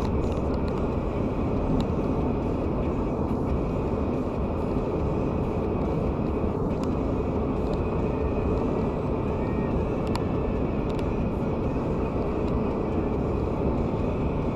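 Steady road noise inside a car cruising at highway speed: tyre and engine noise heard from the cabin, even throughout.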